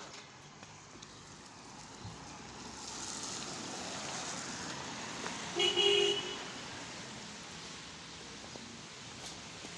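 A vehicle passing, its noise swelling and fading, with a short horn toot a little past the middle.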